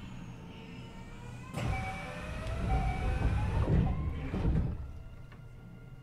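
Running sound inside a Kintetsu 9820 series electric train: the Mitsubishi IGBT-VVVF inverter and traction motors whine in several tones, some of them shifting in pitch. From about one and a half seconds in, a louder rumble of the wheels on the track lasts about three seconds, then settles back.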